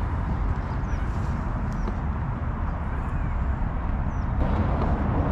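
Steady low outdoor rumble with a few faint, short high bird chirps; about four seconds in, a brighter hiss comes up on top of it.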